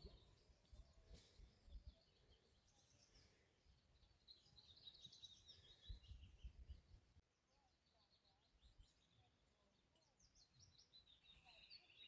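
Faint songbirds chirping and trilling, with rapid chirp series in the middle and a fast trill near the end, over faint low thuds.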